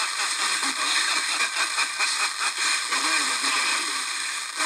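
Weak wideband FM broadcast on 105.9 MHz demodulated by a software-defined radio: a voice talking faintly under heavy, steady hiss from the marginal signal.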